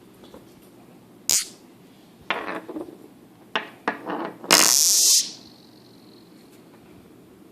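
Rattle magnets (oval 'snake egg' magnets) snapping together and buzzing: a sharp click about a second in, then several short rattling buzzes and clacks, the loudest and longest near the middle, ending with a faint fading ring.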